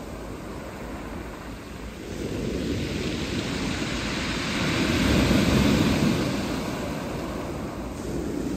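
Sea waves breaking and washing up a shingle beach. The surge swells about two seconds in, peaks around the middle and then eases back.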